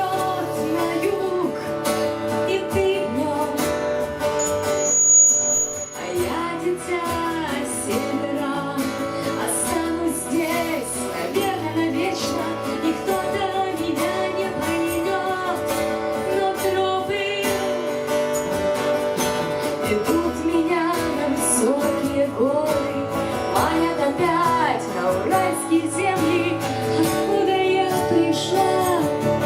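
Live band music: acoustic guitar strumming under a gliding, wavering melody line.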